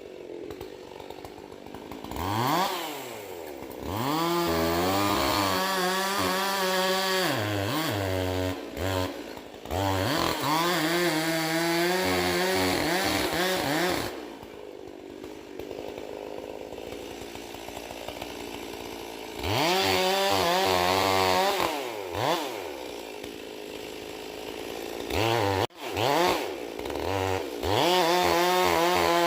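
Two-stroke chainsaw repeatedly revved up to full throttle and held there for several seconds at a time, as when cutting into a poplar snag, dropping back to idle between cuts, with a longer idle about halfway through.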